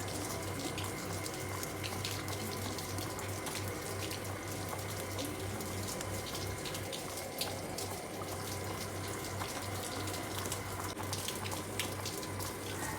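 Steady rainfall, with many small sharp drop impacts over a constant wash of noise.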